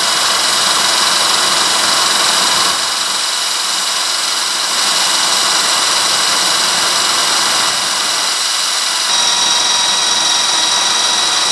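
Power drill running steadily under load, its extended bit boring down through the centre of a steel bolt broken off in an engine block. The motor's steady whine shifts slightly about nine seconds in.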